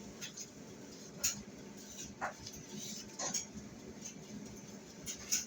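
Quiet room tone with a few faint, short clicks spaced about a second apart.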